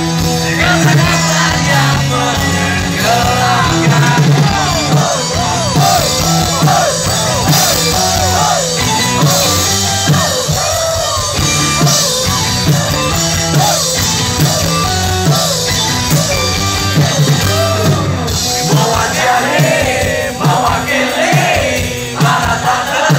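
Live rock band playing loud through a concert PA, with guitars, a steady drum beat and singing, heard from within the crowd.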